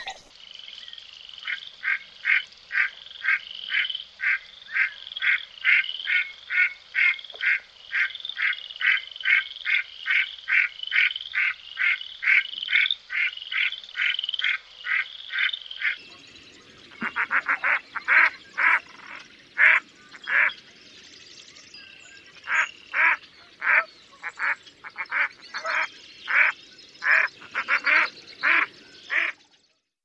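Redhead duck (Aythya americana) calling: a long run of short, evenly spaced calls, about two or three a second. About sixteen seconds in, the recording changes to a slower series of the same kind of short calls, with a brief pause in the middle, ending shortly before the end.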